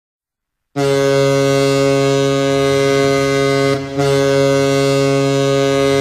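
Toronto Maple Leafs arena goal horn sounding the signal for a home goal. It starts suddenly just under a second in as a loud, steady, multi-toned blast, dips briefly just before four seconds in, and then sounds again.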